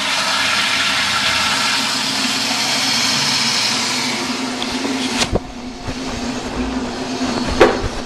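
Gerber Ultraflush toilet with a Sloan Flushmate pressure-assist vessel flushing: a loud, forceful rushing whoosh that cuts off with a thump about five seconds in. A quieter steady hiss follows, with a sharp knock near the end.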